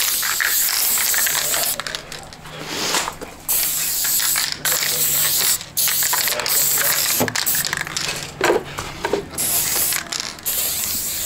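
Aerosol spray-paint can hissing as paint is sprayed, in long bursts broken by short pauses every second or two, with a few sharp clicks in between.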